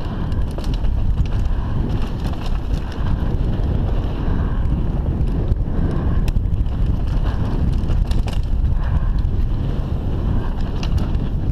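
Mountain bike descending a rocky dirt trail at speed: heavy wind rush on the microphone over the rumble of the tyres on dirt and stones, with frequent small clicks and rattles from the bike.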